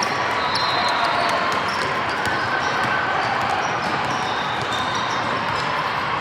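Basketball game sounds in a gym: a ball bouncing on the hardwood court, with short sharp knocks and brief high squeaks over a steady wash of crowd and player noise.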